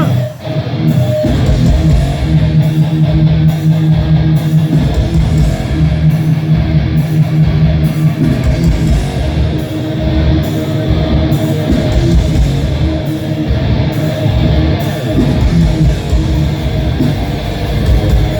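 A death metal band plays live, with heavily distorted electric guitars, bass and drums. The music dips briefly about half a second in, then the full band comes in.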